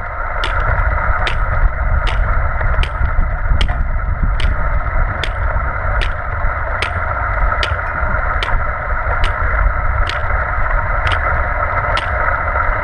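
Manual wheelchair rolling on asphalt with a steady rumble and hiss, while the tips of two hiking poles strike the pavement in sharp clicks about every 0.8 seconds, once per push.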